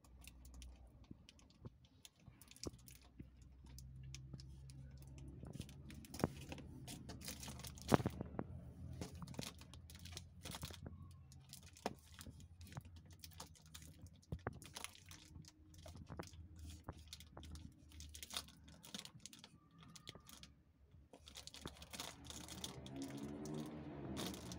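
Irregular light clicks, scratches and crinkles as a cat paws at a feather toy on a cardboard box, over a low steady hum. Music comes in near the end.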